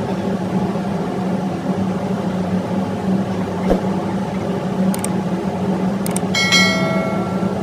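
Steady, loud drone of running diesel generator engines in an engine room, with a strong low hum. About five and six seconds in come two sharp clicks, followed by a short ringing chime from a subscribe-button animation.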